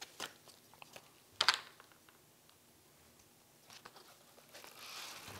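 Light clicks and taps from wooden dowel sticks and the plastic propeller hub being handled and fitted together, with one sharper click about a second and a half in. A faint hiss rises near the end.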